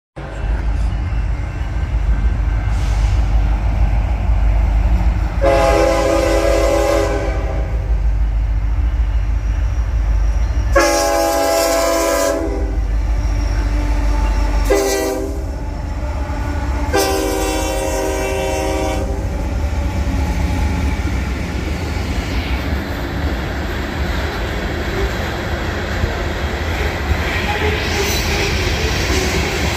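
Union Pacific diesel locomotive sounding its multi-note horn in the grade-crossing pattern: two long blasts, a short one and a final long one, over the steady low rumble of the passing train.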